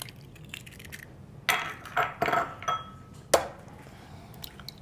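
Eggs cracked on the rim of a glass mixing bowl and opened into it: a cluster of sharp taps and clinks of shell and glass, one ringing briefly, with the sharpest tap about three and a half seconds in.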